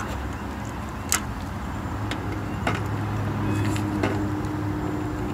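Steady low mechanical hum, with a second steady tone joining about three and a half seconds in, and a few light sharp clicks.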